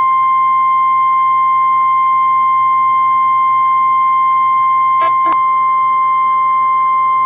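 NOAA Weather Radio warning alarm tone: one loud, steady, high beep held unbroken, heard over a radio with hiss and a low hum, with two brief static crackles about five seconds in. The tone is the alert that comes before a warning broadcast.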